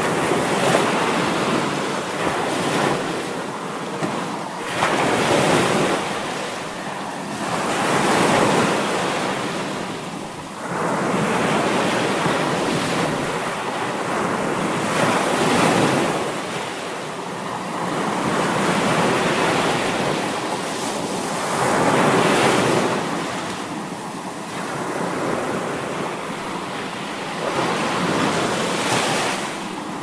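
Ocean waves crashing: a steady hiss of surf that swells and falls every few seconds as each wave breaks and washes back.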